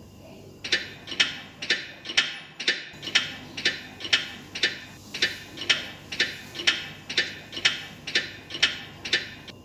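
Clock ticking at about two ticks a second, used as a countdown timer for a timed challenge; it starts a little under a second in.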